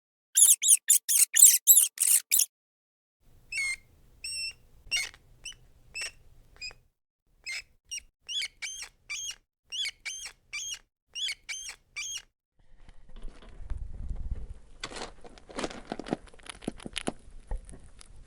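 Rat squeaking: a fast run of sharp, high squeaks, then after a short pause slower, fainter squeaks about every half second. Near the end, a few seconds of scratching, rustling noise.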